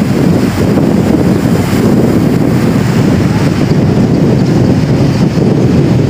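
Loud wind buffeting the microphone, a steady low rumble, over the wash of surf breaking on a sandy beach.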